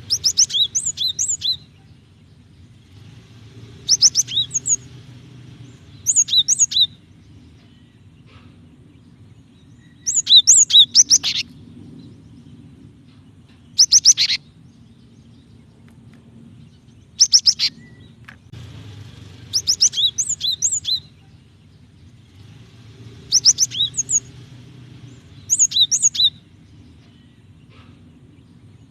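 Female cinereous tit (gelatik batu) calling: about nine short bouts of rapid, high chirps, each a second or two long, with pauses of a few seconds between them. A low, steady hum runs underneath.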